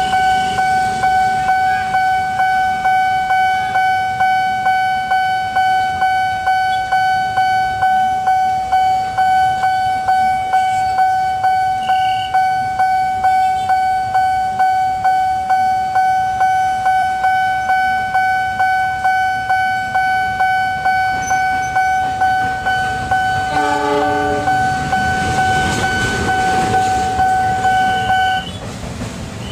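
Level-crossing warning bell ringing, a steady pitched electronic ding repeating about two and a half times a second, which stops near the end. About 24 seconds in a locomotive horn sounds briefly, and the rumble of the approaching light locomotive builds over the last few seconds.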